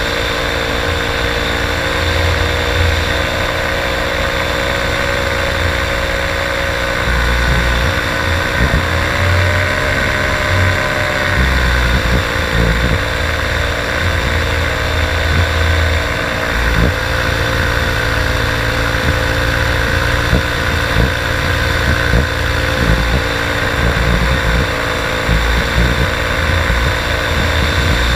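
Paramotor engine and propeller running steadily in flight, briefly throttled up about a third of the way in before settling back, with wind buffeting the microphone.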